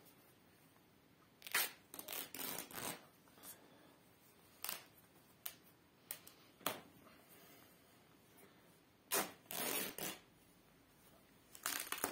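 A Quiksilver T-shirt being torn apart by hand, its fabric ripping in short bursts: a quick cluster of rips about a second and a half in, single short rips through the middle, and longer tears near the end.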